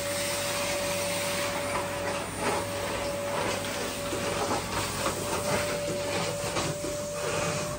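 Vacuum cleaner running steadily, a constant whine over its rushing air noise, with a few light knocks.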